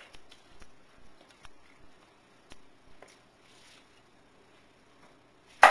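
Thick, stiff polenta being spooned into a frying pan: scattered soft wet plops and light spoon taps, then one loud, sharp knock near the end.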